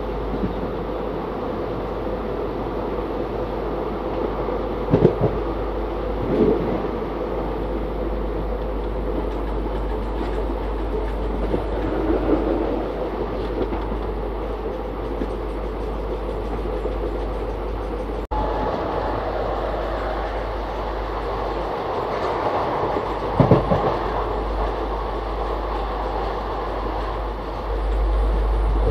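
Passenger train running at speed, heard from on board at the side of a coach: a steady rolling rumble and rush of air, with a few brief louder knocks.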